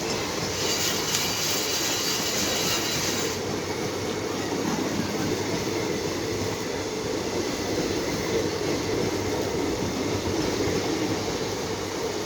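Train passing on the rails with a steady rumble of wheels and carriages. A high-pitched hissing screech rides over it for about three seconds near the start, then stops abruptly.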